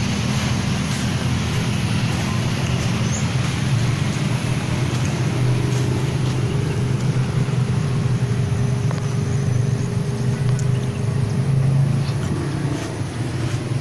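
Steady low rumble of road traffic and running engines, with a faint engine hum drifting in pitch.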